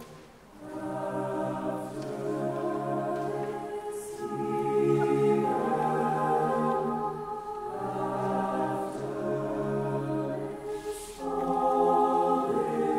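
Mixed choir singing slow, sustained chords, moving to a new chord every three to four seconds.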